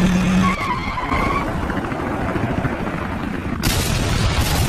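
Cartoon sound effects: a loud, steady rushing noise with a brief whistle about a second in as the missile flies, then a sudden brighter blast about three and a half seconds in as the helicopter is hit and explodes.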